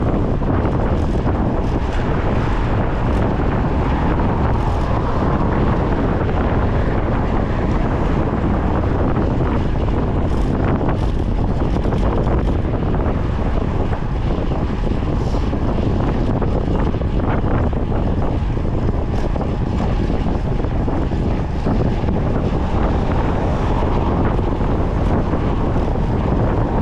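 Wind buffeting the microphone of a camera on a moving bicycle: a steady, dense rushing noise.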